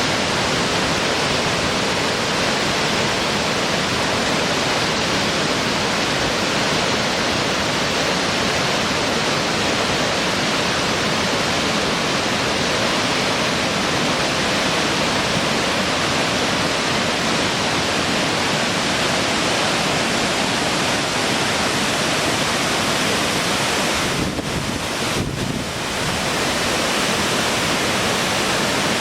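Steady, even rushing of water, loud and unbroken, dipping briefly about 24 seconds in.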